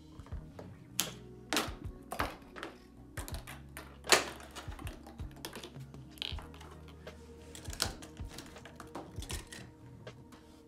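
Irregular plastic clicks and clacks of a K'NEX chain-reaction machine running, its balls and parts knocking along the tracks, with the loudest clack about four seconds in.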